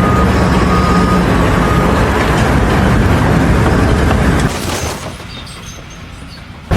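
Loud, steady rumble of heavy machinery running. It falls away about four and a half seconds in and stays quieter until an abrupt cut near the end.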